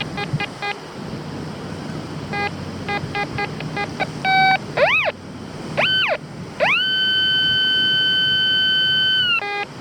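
Quest X10 metal detector's audio: bursts of rapid short beeps, then tones that sweep up and down in pitch, and a long steady tone in the second half that cuts off near the end, the detector responding to buried targets as the coil is swept.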